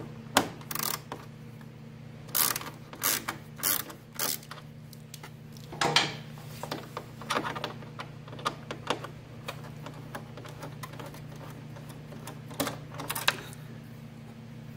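Hand ratchet with a T25 Torx bit clicking in short irregular runs as M5 screws are backed out of a motorcycle's plastic front side panel. A steady low hum runs underneath.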